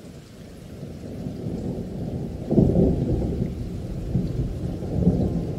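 Wind buffeting the microphone: a rough low rumble that builds steadily, surges sharply about two and a half seconds in, and keeps swelling and easing in gusts.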